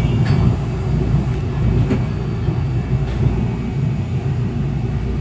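Steady low rumble inside a Busan–Gimhae Light Rail car standing at a station platform, with a few faint clicks.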